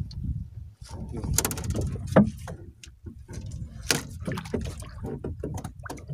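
Knocks and scrapes on a small boat's gunwale and hull as a longline is hauled in by hand, with a quick run of clicks about one and a half seconds in and the loudest knock just after, over a steady low rumble.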